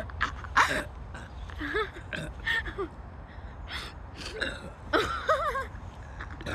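Girls' voices gasping and making short squeaky sounds, pitch bending up and down, in a run of brief bursts; the loudest, sharpest gasp comes about half a second in.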